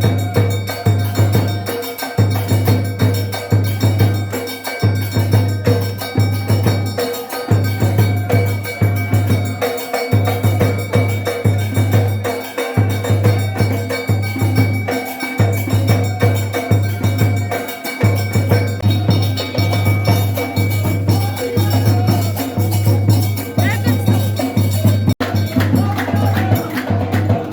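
Loud rhythmic music driven by steady drumming and percussion, with short breaks in the beat every couple of seconds.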